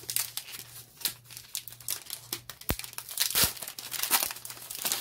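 Foil wrapper of a Pokémon trading-card booster pack being crinkled and torn open by hand: irregular crackling and tearing, loudest about three seconds in.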